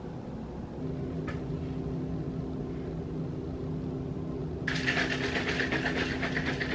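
A steady low hum, joined about two-thirds of the way through by a fast, even rattling of a drink bottle being shaken.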